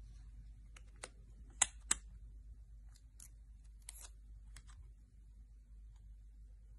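Handling sounds from an iPhone 11 Pro Max being turned over in the hand: a series of light clicks and taps, with two sharper clicks close together a little under two seconds in.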